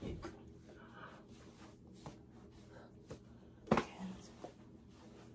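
Quiet room with faint murmured voices and rustling, and one sharp thump about three and a half seconds in.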